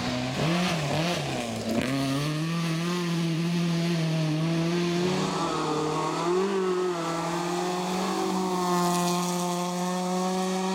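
Rally car engine running at high revs, holding a mostly steady high note with a brief dip and rise about five to six seconds in.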